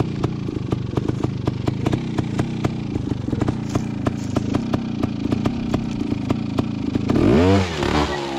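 Beta trials motorcycle engine idling steadily with an even, regular ticking. Near the end the throttle is blipped: the engine note rises quickly and falls back to idle.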